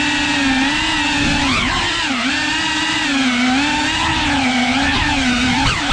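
3.5-inch cinewhoop FPV drone's brushless motors and propellers whining in flight, the pitch rising and dipping again and again with the throttle.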